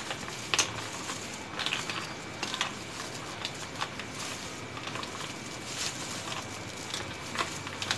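Spoon stirring ice cubes and Sprite in a glass, with irregular light clinks and taps as the spoon and ice knock against the glass.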